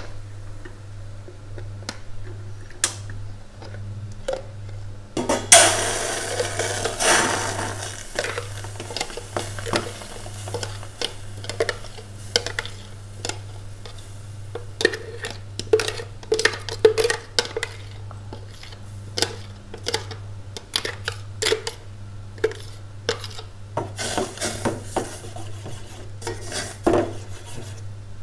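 A spoon scraping and knocking against a blender jug and a stainless steel saucepan as thick blended chili paste is scraped out into the pot, with many quick clicks and taps. There is a louder rushing scrape about five to eight seconds in, and a steady low hum underneath.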